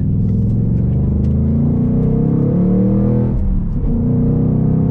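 Ford Mustang Mach 1's naturally aspirated 5.0-litre V8 accelerating in second gear, heard from inside the cabin, its pitch rising steadily. About three and a half seconds in, the revs drop briefly as the six-speed Tremec manual is upshifted into third, and the engine pulls again from a lower pitch.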